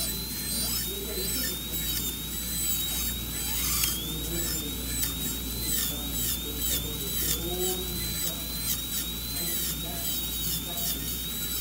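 High-speed dental handpiece whining as its bur cuts a cavity in a tooth. Its pitch dips briefly over and over as the bur is pressed in with short intermittent strokes to even out the cavity's depth.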